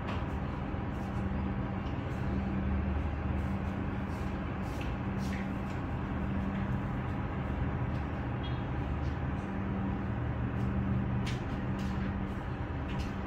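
Steady low rumble of city traffic heard through a window, with a constant low hum and a few faint clicks.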